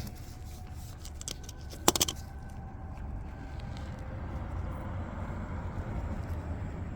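Light metallic clicks and a brief jingle about two seconds in as small metal tools are handled, over a steady low rumble.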